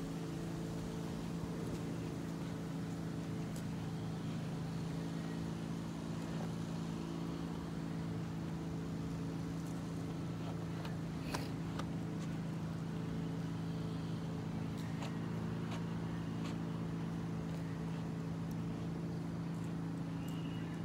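Steady low hum of a running motor, holding one pitch throughout, with a few faint clicks over it, one about halfway through.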